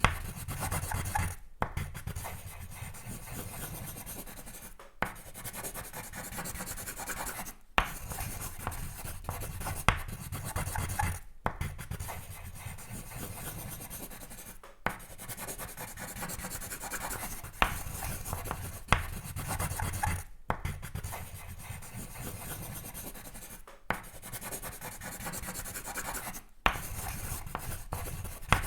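Pencil scratching across paper in steady sketching strokes. The strokes break off for a moment every few seconds, and there are occasional light taps.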